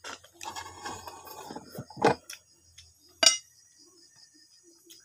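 Snail shells and dishes clinking during a meal eaten by hand: a short spell of small handling sounds, then two sharp clinks, the second, about three seconds in, the loudest and briefly ringing. Crickets chirp faintly in the background.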